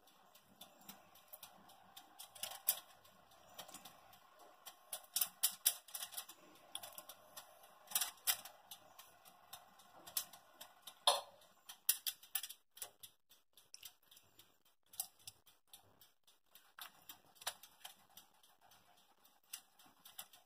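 Aluminium foil on a baking tray crinkling in irregular sharp clicks as marinated soya chaap and mushroom pieces are set down on it by hand. The clicks come in bunches during the first half and thin out after.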